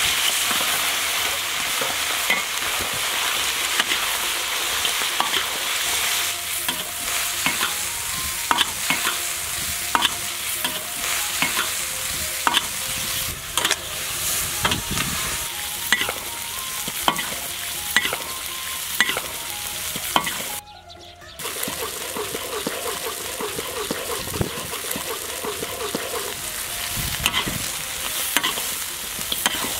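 Chicken pieces sizzling in hot oil in a large iron wok, stirred with a metal spatula that scrapes and clicks against the pan again and again. The sizzle breaks off briefly a little past two-thirds of the way through.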